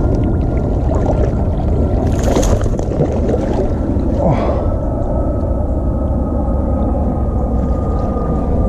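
A small boat's motor running steadily, a low rumble with a thin whine over it. Brief splashes about two seconds in and again about four seconds in come from a hooked fish thrashing at the surface.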